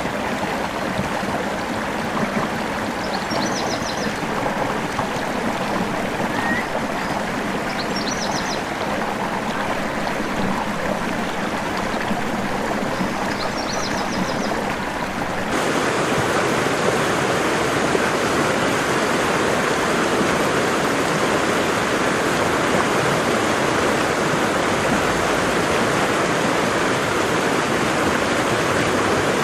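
Waterfall water rushing in a steady roar. About halfway through it switches abruptly to a louder, fuller rush. In the first half a faint short high chirp comes three times, about five seconds apart.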